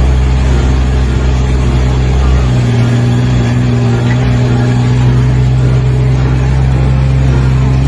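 A loud engine running steadily, with a slight change in its note about two and a half seconds in.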